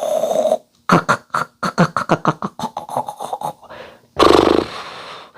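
A person's voice making sounds without words: a short held tone, then a quick run of short pitched syllables, then a loud rasping snort-like sound about four seconds in, followed by a breathy hiss.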